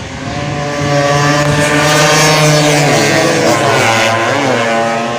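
Two-stroke engine of a tuned racing Vespa scooter running at high revs, its pitch dropping from about three seconds in as it comes off the throttle.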